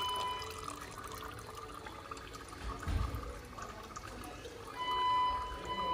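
Warm engine oil trickling in a thin stream from the open sump drain hole of a BMW i3 REx's range-extender engine into a plastic measuring jug, as the sump drains. A steady high tone sounds briefly at the start and again near the end.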